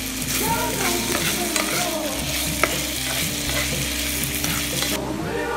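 Diced raw chicken sizzling in hot oil in a frying pan while a spatula stirs and scrapes it around, with one sharp tap of the spatula about halfway through. The sizzle drops away abruptly near the end.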